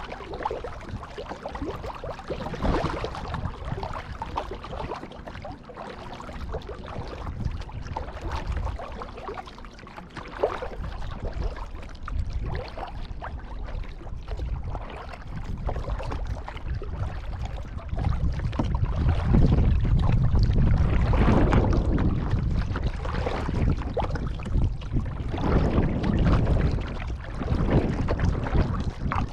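Kayak paddle strokes on calm water: the blade dipping and water splashing and trickling off it in irregular swells. A louder low rumble joins in over the second half.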